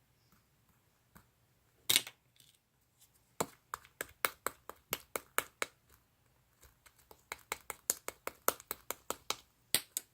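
Slime being worked by hand, giving sharp clicking pops. There is a loud cluster about two seconds in, then two runs of about four clicks a second, with two more pops near the end.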